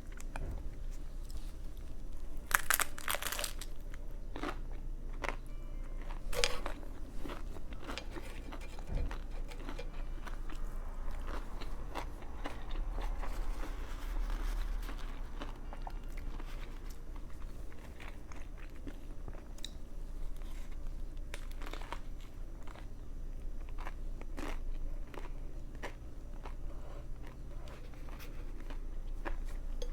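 Close-up biting and chewing of a Subway veggie patty footlong sandwich, with crunchy bites. The loudest bites come a few seconds in and again about six seconds in.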